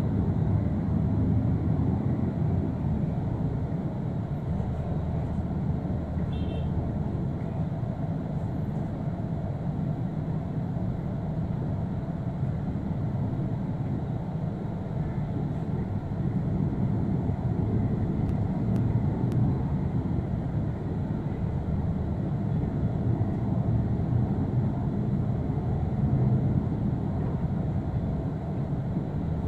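Transjakarta city bus under way, heard from inside the cabin: a steady low rumble of engine and road noise.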